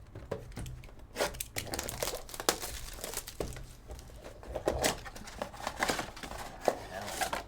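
Trading-card pack wrappers being torn open and crinkled by hand, an irregular run of sharp crackles and rustles starting about a second in.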